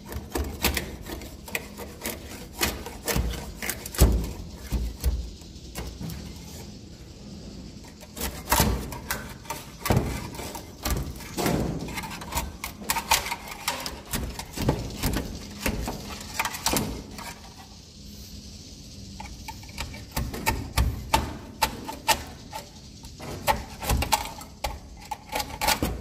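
A pole-mounted landing net knocking and scraping against wooden rafters as it pries a swiftlet nest loose during harvesting: irregular clicks and knocks in clusters, with short lulls between them.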